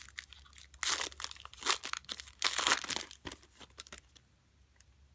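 Foil wrapper of a trading-card pack being torn open and crinkled in several short rips, stopping about four seconds in.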